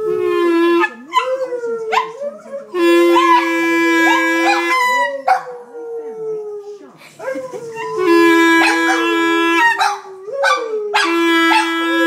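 Boston terrier howling along to a clarinet: long wavering howls that slide down in pitch, over held clarinet notes that come in about four times and stop between.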